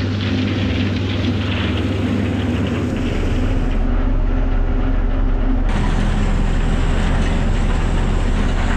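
Tractor engine running steadily, with a deeper, slightly louder drone setting in about three seconds in.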